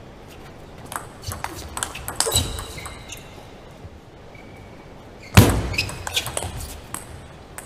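Table tennis rally: the celluloid ball clicking sharply off bats and table in quick strokes, with a couple of short squeaks, and one loud thump about five seconds in.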